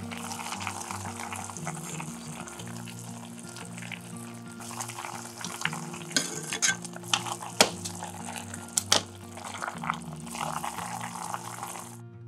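Salmon kombu rolls simmering in broth in an aluminium yukihira pan: a steady bubbling hiss, with a metal ladle giving a few sharp clinks against the pan in the second half. Soft background music underneath; the simmering cuts off abruptly just before the end.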